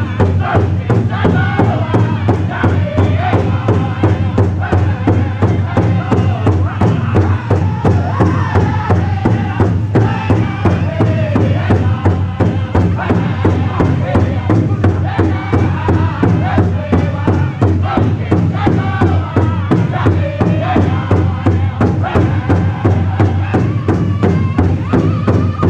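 Powwow drum group singing a jingle dress dance song in unison, the singers striking a large hide-headed drum together in a steady, even beat.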